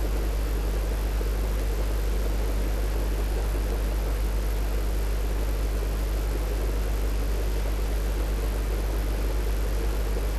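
Steady low hum with a constant hiss over it, unchanging throughout; no distinct tool knocks or clicks stand out.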